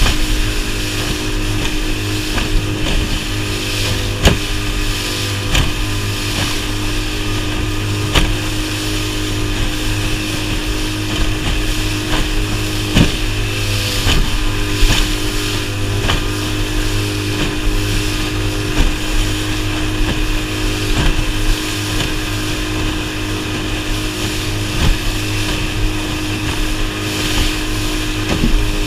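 Outboard motor on a small aluminium boat running steadily at speed, with rushing water and spray and sharp knocks now and then as the hull slams into the chop.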